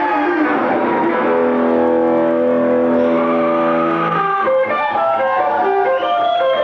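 Live rock band music led by electric guitar: a chord held for about three seconds, then a run of short single notes and bends.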